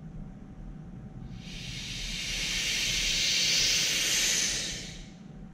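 Air hissing back into a glass bell-jar vacuum chamber through its release valve, breaking the vacuum after investment plaster has been degassed. The hiss swells in about a second in, holds, then fades away near the end.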